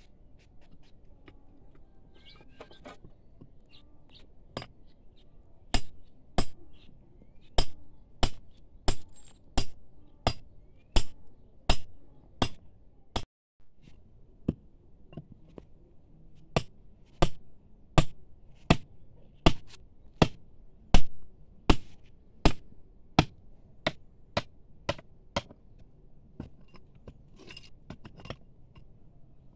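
Hammer driving a steel chisel into rock, breaking up stone while digging a pit. Sharp metallic strikes come about three every two seconds, in two long runs with a short break near the middle.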